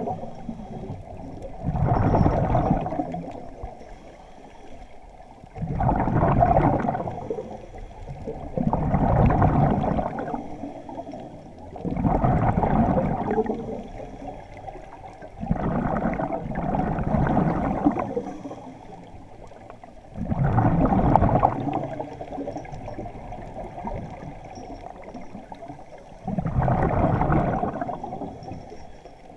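Scuba regulator breathing heard underwater: a gurgling rush of exhaled bubbles comes in a burst about every three to four seconds, with quieter stretches between breaths.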